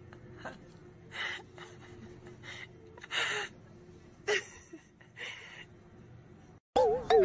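A handful of short, breathy gasps or puffs of air, each under half a second, spread irregularly over several seconds above a faint steady hum. Near the end, music with warbling sung tones cuts in suddenly.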